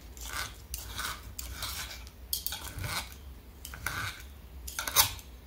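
A metal knife and fork cutting through an omelette, the knife scraping against the plate in repeated short sawing strokes. A sharper, louder scrape comes about five seconds in.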